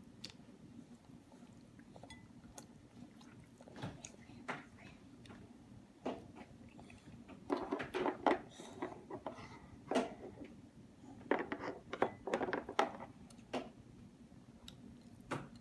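Scattered light clinks and scrapes of a plastic spoon against a china plate, coming in small clusters about halfway through and again a little later.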